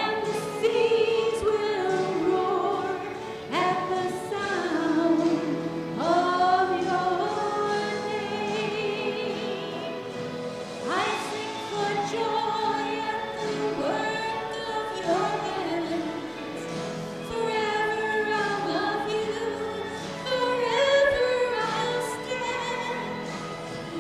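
Sacred vocal music: trained voices singing held notes with vibrato.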